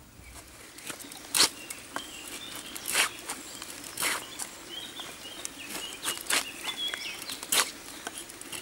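A knife blade carving a wooden stick, one scraping stroke about every second or so. Birds chirp faintly in the background.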